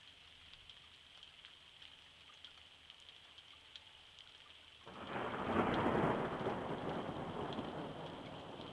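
Light rain pattering and dripping on wet pavement. About five seconds in, thunder breaks suddenly, is loudest a second later, then rumbles on and slowly fades.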